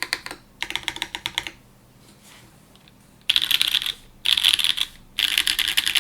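Typing on a gok Type-K mechanical keyboard with Pleiades Subuwu V2 switches, aluminium plate, DMK Third Space keycaps and force break pads fitted, no foam. Runs of quick keystrokes, a pause of about two seconds, then three louder runs of typing.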